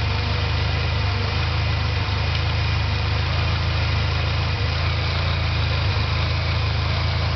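A 2001 Ford Ranger's 2.5-litre four-cylinder engine idling steadily while still cold, its thermostat not yet open, as air is bled from the refilled cooling system.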